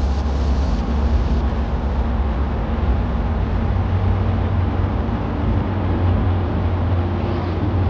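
Steady low rumbling background noise with an even hiss over it, unchanging throughout.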